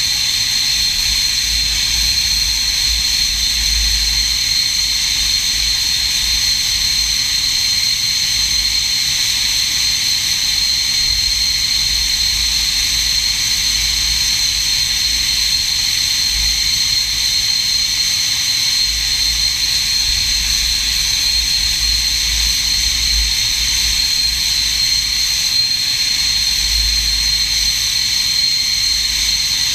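SEPECAT Jaguar's Rolls-Royce Turbomeca Adour turbofan engines running steadily at ground idle: a constant high turbine whine over a low rumble.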